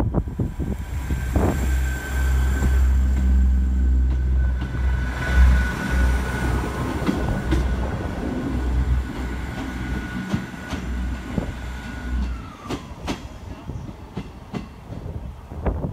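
Class 158 diesel multiple unit running past, its diesel engines giving a loud low rumble with a steady high whine over it. About twelve seconds in, the rumble and whine drop away suddenly, leaving a few sharp clicks from the rails.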